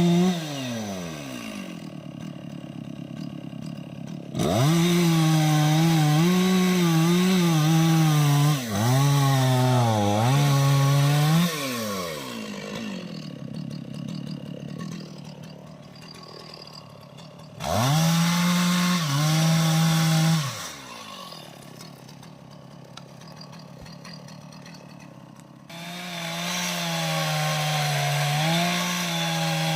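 Two-stroke chainsaw cutting jackfruit wood, switching between full throttle and idle several times. It drops to idle just after the start, runs flat out again from about four seconds in to eleven with its pitch dipping and wavering under the load of the cut, idles, revs for about three seconds, idles again, and comes back up near the end.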